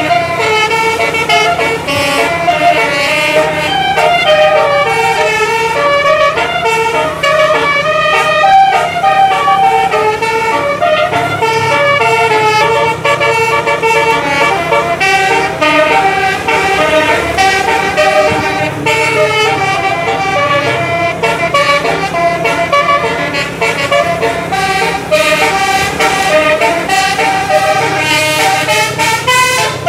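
Bus musical air horn (telolet) playing a long melody of stepped notes, with the bus engine running underneath.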